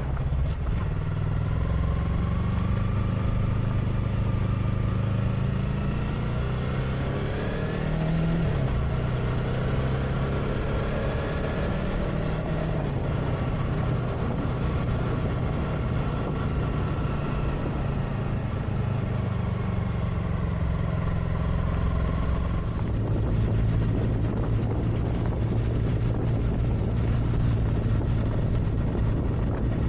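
Motorcycle engine running at road speed as heard from a camera mounted on the bike, its pitch rising and falling a few times with the throttle over road and wind noise, then settling to a steadier drone for the last seven seconds.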